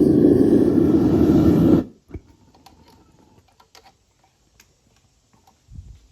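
Loud, steady roar of a copper-melting furnace's burner that cuts off abruptly about two seconds in, leaving only faint scattered clicks and taps.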